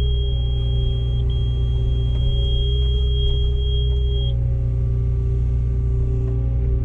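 Komatsu PW160 wheeled excavator's diesel engine running steadily with a deep drone and a steady hydraulic whine. A thin high-pitched tone sounds over it and cuts off suddenly about four seconds in.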